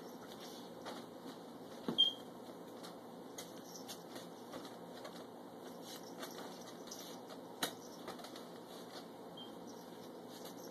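A rubber balloon being batted by hand, soft pats and light taps, with a sharper tap about two seconds in and another near eight seconds, while a puppy lunges after it on a couch.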